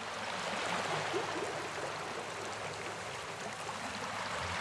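Steady outdoor rushing noise with no distinct events, of the kind made by wind and open-air surroundings.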